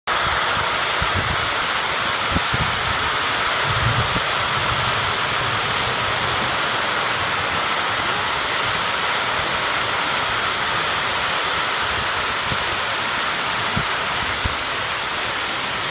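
Torrential rain pouring down steadily, with strong wind buffeting the microphone as low rumbles and thumps, mostly in the first few seconds.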